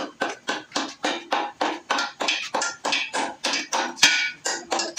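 Background music with a fast, even plucked-string beat of about five strokes a second.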